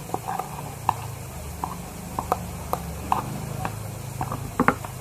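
Irregular light clicks and taps of a spoon and plastic containers being handled as slime mixture is poured into another container, with a sharper double tap near the end, over a steady low hum.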